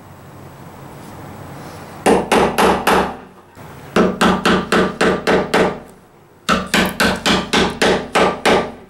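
A hammer striking a chisel in quick, ringing blows, chopping out a butterfly-key recess in an oak board. There are three runs of about four to five blows a second, starting about two seconds in, with short pauses between them.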